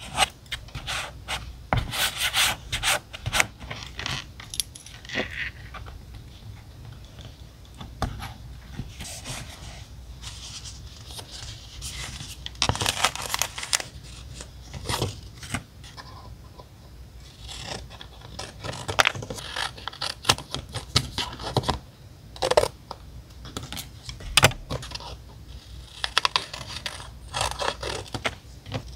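Paper craft materials handled on a desk for diary decorating: paper and sticker sheets rustling and being rubbed down, with irregular small taps and clicks in clusters.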